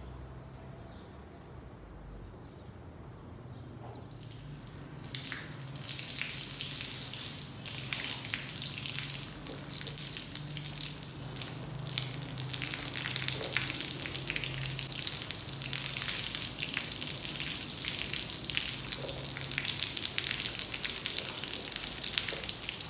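A stream of water splashing onto a soaked, mud-caked rug and the tile floor around it. It starts about four seconds in, grows louder, then runs on as a steady crackling splatter.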